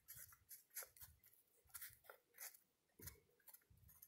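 Pencil writing on a sheet of paper: a string of faint, short scratching strokes as a word is written out.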